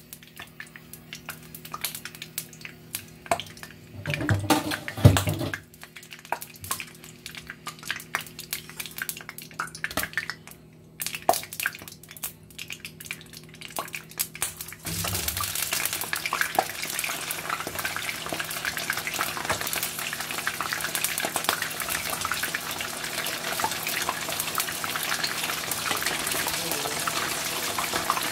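Hot oil in a wok crackling lightly with scattered pops, and a brief low thump about five seconds in. About halfway through a sudden, much louder sizzle starts as pre-boiled chicken pieces go into the oil, and it carries on as a steady dense crackle of deep-frying.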